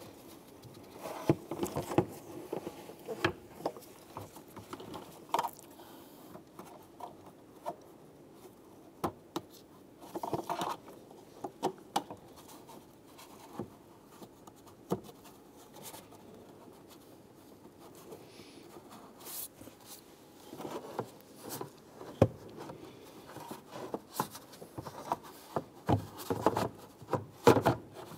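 Hands handling plastic under-hood parts: irregular clicks, taps, scrapes and rubs of plastic and glove, busier in the last several seconds.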